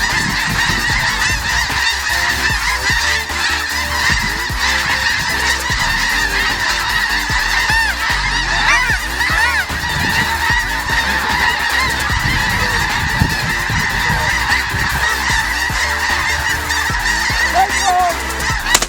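A large flock of snow geese calling: a dense, continuous chorus of overlapping honks.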